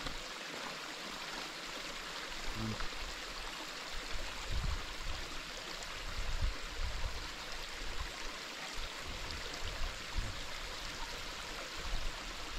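Running water rushing steadily, with a few faint low thumps.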